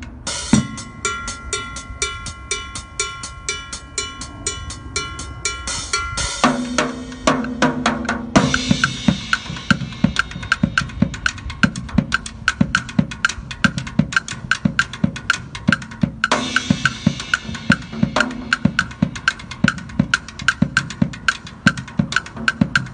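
Acoustic drum kit played to a steady, busy beat on bass drum, snare and cymbals. A cymbal crash rings out near the start, with a few more crashes later.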